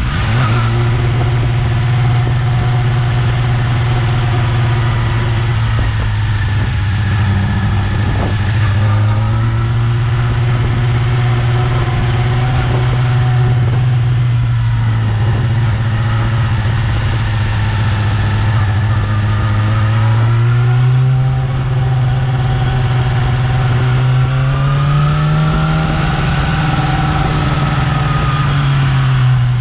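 Yamaha R6's 600 cc inline-four engine running on its stock exhaust, holding fairly steady revs that drift slowly up and down, with one longer rise in pitch and drop back near the end.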